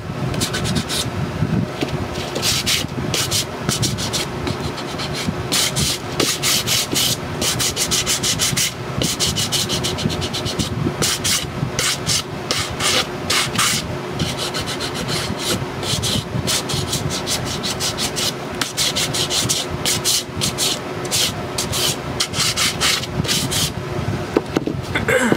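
Sanding block rubbed back and forth over a chipboard box in quick, repeated strokes, sanding back a dried coat of antiquing cream.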